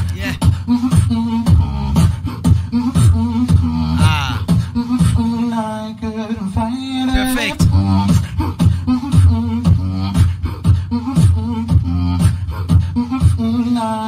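Solo beatbox performance into a cupped handheld microphone: a fast, dense beat of kick and snare sounds over held low bass tones. Wavering melodic vocal lines come in about four seconds in and again around seven seconds.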